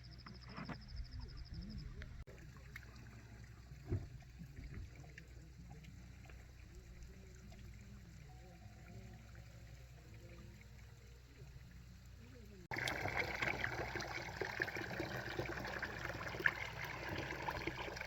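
Hot spring water trickling and running steadily into a soaking tub, starting abruptly about two thirds of the way in. Before that there is only faint outdoor quiet with distant voices.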